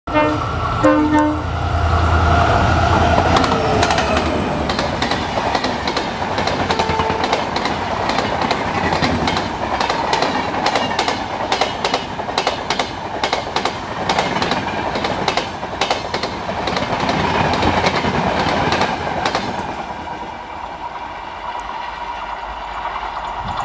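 WDP4 diesel-electric locomotive running through at speed, sounding its horn in the first few seconds over the rumble of its two-stroke engine. Then the rapid clickety-clack of the coaches' wheels over rail joints as the long passenger train rushes past, fading near the end as it recedes.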